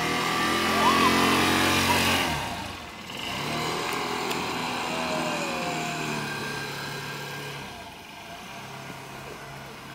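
Small motor scooter engine running as the scooter rides off with a rider and passenger. The engine note drops out briefly about two and a half seconds in, picks up again, and grows fainter as it moves away.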